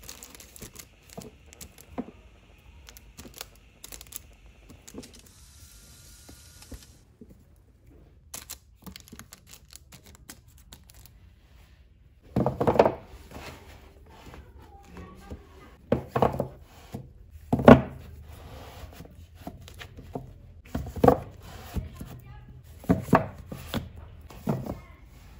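Paperback manga volumes being handled on a bookshelf: light taps and rustles, then about six sharp thunks in the second half as books are knocked and pushed into place against the shelf.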